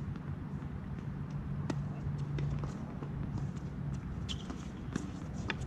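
Tennis rally on a hard court: sharp pops of racket strings on the ball and bounces, a couple of seconds apart, over a steady low rumble and hum.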